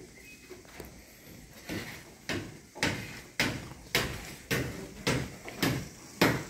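Footsteps on a hard concrete surface, a steady walking pace of sharp steps a little under two a second, starting about a second and a half in.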